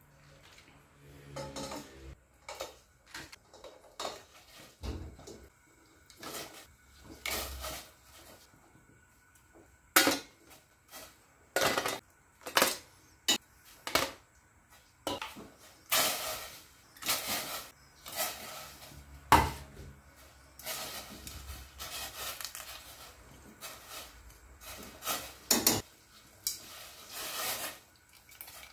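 Slotted stainless-steel tongs clinking, knocking and scraping against a stainless-steel bowl, tray and pot as lobster pieces are picked up and moved, in irregular clatters with quieter scraping between.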